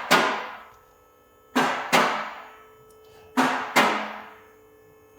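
Sharp, ringing strikes in pairs, three times, each dying away over about a second.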